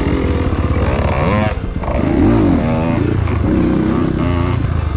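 Motorcycle engine running under way, revving up about a second in and dropping back soon after, then rising and falling again.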